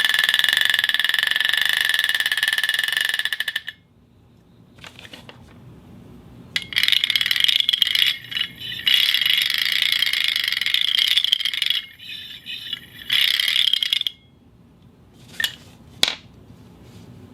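An object dragged across a concrete floor, making a loud high-pitched squeal from friction. There are two long drags, the second with short breaks, then two brief scrapes near the end.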